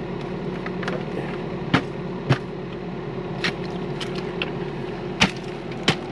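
Diesel engine of a tracked excavator idling steadily, with a few sharp knocks over it.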